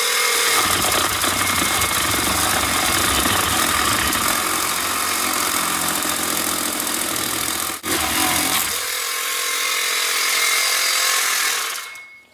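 Home-built 12-volt chainsaw running off a car battery through jumper cables: its electric motor drives the chain into a block of wood, with a brief break a little under 8 seconds in. It stops just before the end, as the jumper clamp is pulled off the battery.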